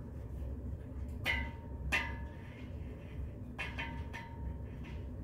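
Screwdriver and steel bed-frame parts clinking during assembly: a few sharp metal taps, each with a brief ringing tone, about a second in, at two seconds and again near four seconds, over a low steady hum.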